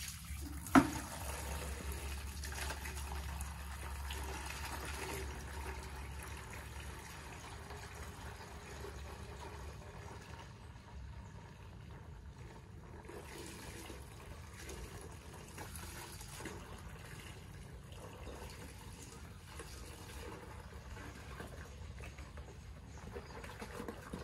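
Water running steadily into a bucket with soap in it, filling it for wash water. A sharp knock about a second in.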